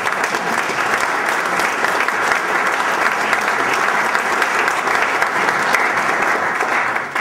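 Large audience applauding, steady dense clapping that dies away at the very end.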